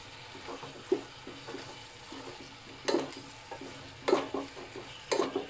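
A utensil stirring sautéing pechay and tomatoes in a frying pan, over a steady sizzle, with sharp knocks of the utensil against the pan about one, three, four and five seconds in, the ones at three and four loudest.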